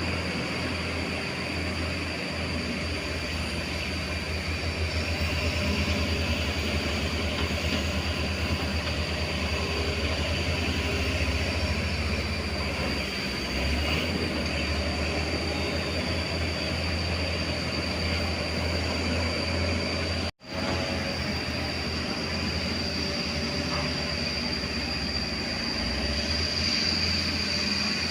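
JCB JS205 excavator working, its diesel engine running steadily with a low rumble and a steady high whine over it. The sound drops out for an instant about twenty seconds in.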